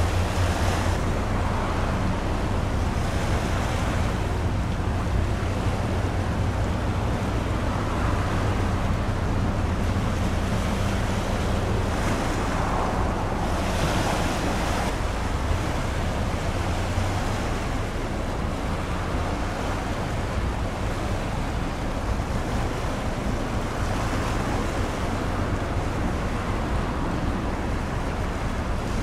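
Low, steady drone of a passing container ship's engine over waves washing and wind on the microphone; the drone weakens about halfway through as the ship draws away.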